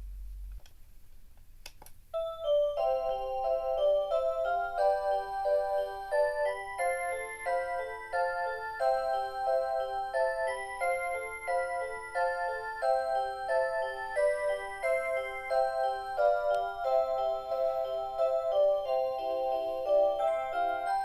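Rhythm Watch Aria Cantabile melody alarm clock playing a Christmas tune through its speaker, with several notes sounding at once. It starts about two seconds in, just after a couple of short clicks.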